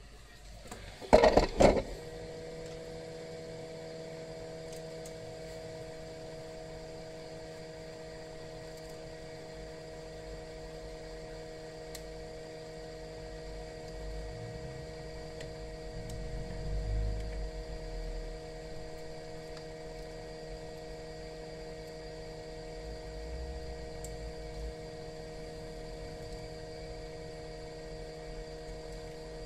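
A short clattering burst about a second in, then a steady machine hum made of several even tones that carries on unchanged.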